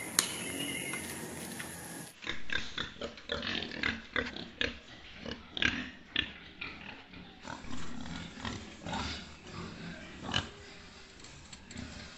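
Domestic pigs grunting in short, irregular bursts, starting about two seconds in after a steady background hiss.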